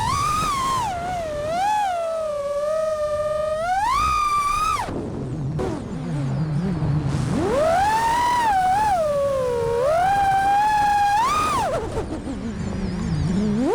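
Brushless motors of an FPV freestyle quadcopter whining in flight, the pitch rising and falling with the throttle. The pitch drops low twice, about midway and near the end, as the throttle is chopped, then climbs again.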